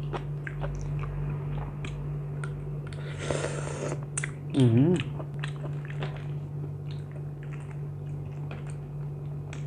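Close-up chewing and crunching of papaya salad and raw vegetables, with many small crunches. About four and a half seconds in comes a short wavering 'mm' from the eater, the loudest moment. A steady low hum runs underneath.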